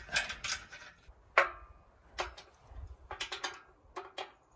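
Metal clinks and clicks of wrenches on a nut and bolt as it is tightened on the steel frame of a log splitter: a string of separate sharp clicks, the loudest about one and a half seconds in with a short metallic ring.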